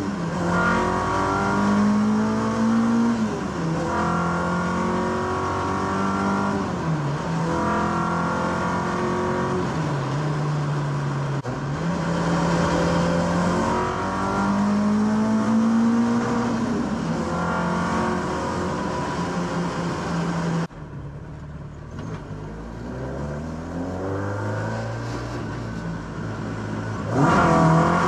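Car engine accelerating hard at full throttle. Its pitch climbs through each gear and drops at every gear change, several times over. About three quarters of the way through it suddenly becomes quieter while still pulling up in pitch, then is loud again near the end.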